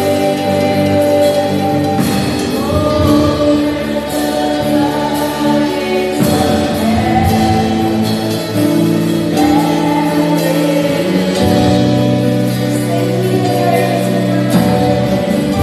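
Gospel worship singing over instrumental accompaniment, with long held chords beneath the sung lines.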